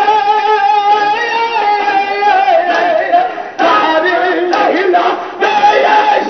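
A crowd of men chanting zikr together, loud. A long held note comes first, then rising and falling sung phrases, with two short breaks.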